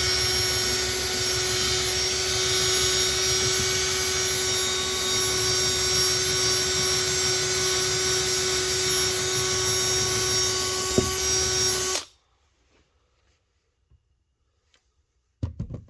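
Electric drill spinning a wire brush at a steady speed, scrubbing the brake master cylinder casting clean: a constant whine with a scratchy hiss that cuts off suddenly about twelve seconds in. A short knock comes near the end.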